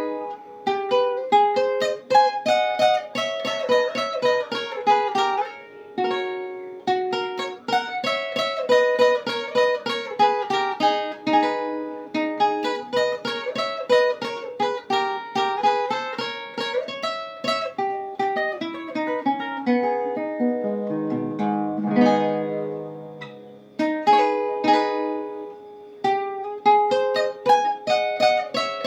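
A requinto, a small high-pitched guitar built of fine woods, played solo: a fast plucked melody of single-note runs, with a slower passage of lower notes about two-thirds of the way through.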